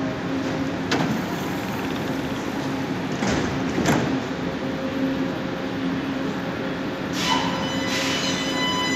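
CSR-built metro train at a platform, humming steadily, its sliding doors shutting with knocks about three to four seconds in. Near the end the traction motors start with a steady high whine as the train pulls away.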